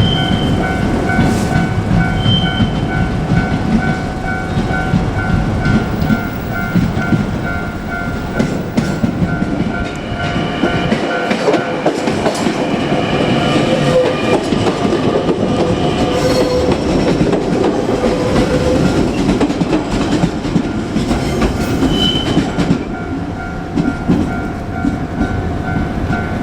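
A level-crossing warning bell ringing in a steady, rapid two-tone rhythm while a JR Kyushu 817-series electric multiple unit runs slowly over the crossing, its wheels clacking over the rail joints. For much of the middle the bell is lost under the train's rumble, and it comes back near the end.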